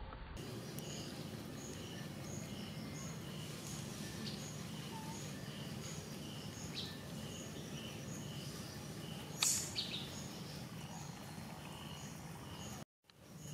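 Outdoor ambience: short high chirps repeating evenly, about two or three a second, over a steady low hum. A single sharp click about nine and a half seconds in, and the sound cuts out briefly near the end.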